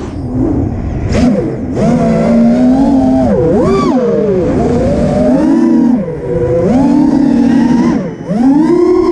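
FPV freestyle quadcopter's four GepRc 2306 2450kv brushless motors whining, the pitch swelling and dropping again and again as the throttle is punched and cut through flips and turns.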